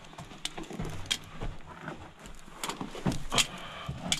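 Footsteps crunching and scuffing on the loose rock and dirt floor of a mine tunnel, an irregular run of sharp scrapes and knocks, with the busiest cluster about three seconds in.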